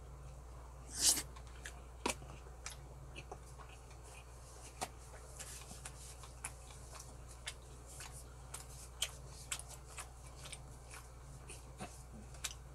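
A man eating braised pork ribs close to the microphone: faint wet mouth clicks and lip smacks scattered throughout, with a short loud hiss about a second in, over a steady low hum.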